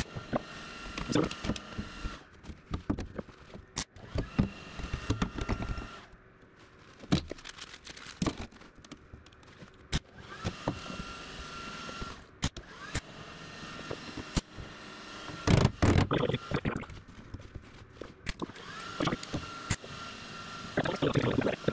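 MIG welder laying a run of short tack welds on thin sheet steel, each a brief crackle with pauses between. The old steel is thinner with rust than expected, so some tacks blow through it.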